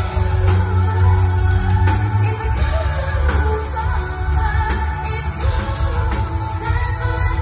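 Live pop-rock band performing: a female lead singer over electric guitars and drums, with a heavy bass.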